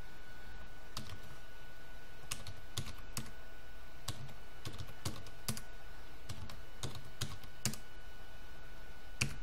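Keystrokes on a computer keyboard: a password being typed, single key clicks at an uneven, unhurried pace, one louder key press near the end. A faint steady high whine runs underneath.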